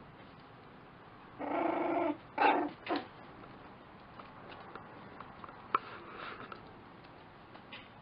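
Lakeland Terrier puppy vocalising at play: one drawn-out high call, then two short yips in quick succession. A single sharp click follows a few seconds later.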